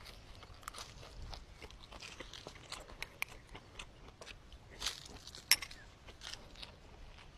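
Food being chewed and bitten, with irregular small crunches and clicks and one sharper crunch about five and a half seconds in.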